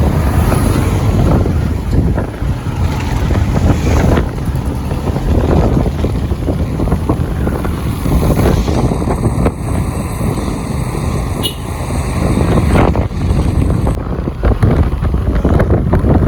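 Wind buffeting the microphone on a moving motorbike, with the bike's engine and road noise running underneath.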